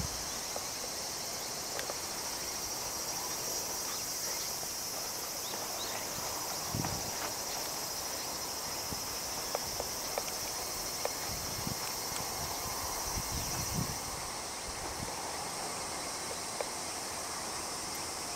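A steady, high-pitched chorus of insects, with a few brief low bumps on the microphone; the highest part of the chorus fades about fourteen seconds in.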